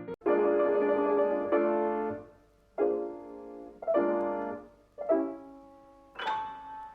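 Piano music: chords played in short phrases separated by brief pauses.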